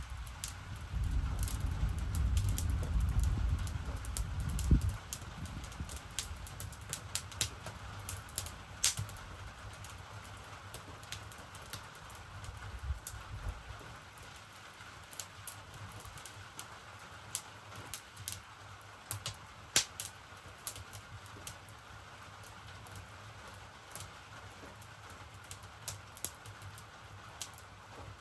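Wood fire crackling, with irregular sharp pops, under a low rumble that fades after about five seconds.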